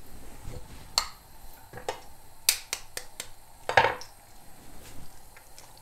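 Bread and a freshly cracked egg frying in hot vegetable oil in a frying pan, the oil spitting in irregular sharp pops and crackles, loudest about two and a half and four seconds in.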